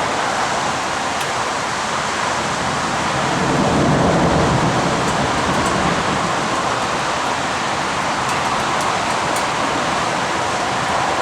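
Heavy rain falling as a steady hiss, with a low rumble swelling briefly around four seconds in.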